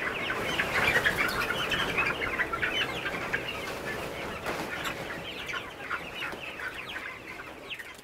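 A flock of broiler chickens calling: many short, overlapping calls that fade out gradually over the last few seconds.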